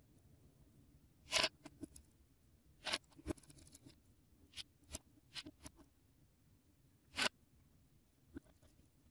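Lego bricks and plates clicking and scraping as they are handled and pressed on and off a Lego car model: a string of sharp plastic clicks, the loudest about a second and a half in and again about seven seconds in, with a short patter of small ticks around three and a half seconds.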